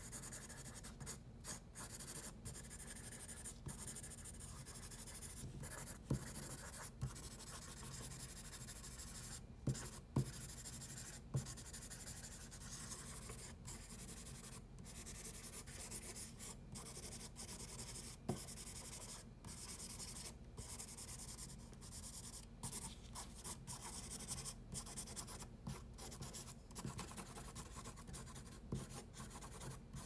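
Graphite pencil scratching across drawing paper in quick shading strokes, broken by many short pauses as the pencil lifts, with a few light taps.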